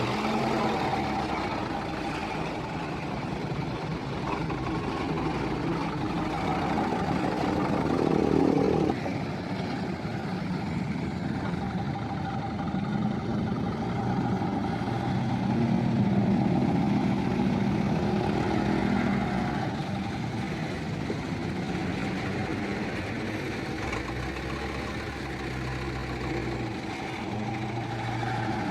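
Heavy vehicle engine running steadily. A rising tone about eight seconds in stops sharply, and the engine swells in the middle before settling back.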